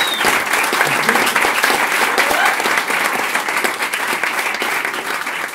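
Audience applauding steadily at the end of a live song, with a brief high whistle at the very start; the clapping tapers off a little near the end.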